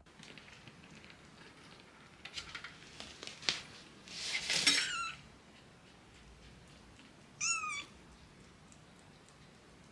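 Young silver tabby kitten mewing: a louder, rough cry falling in pitch about halfway through, then a short high mew near the end. A few faint clicks come just before the first cry.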